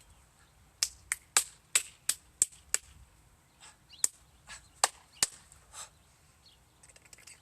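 A series of about ten sharp clicks: seven come in quick succession, about three a second, then after a short pause three more.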